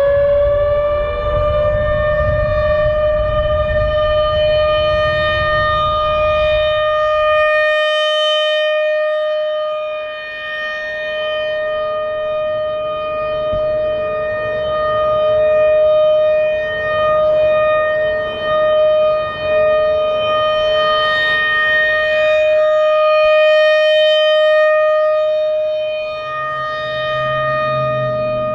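American Signal RM-130 rotating outdoor warning siren sounding its steady one-minute alert tone. It levels off at full pitch within the first second or so after winding up, then holds one steady high tone with many overtones that swells and fades as the rotating head turns toward and away.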